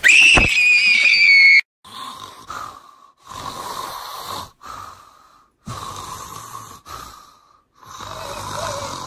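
A high-pitched scream held for about a second and a half, then a person snoring in slow, separate breaths, about one every second or so.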